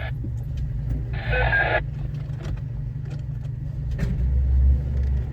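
Four-wheel-drive vehicle's engine running at low speed, heard from inside the cab as it creeps to get level, swelling briefly about four seconds in. A short hissing burst sounds about a second in.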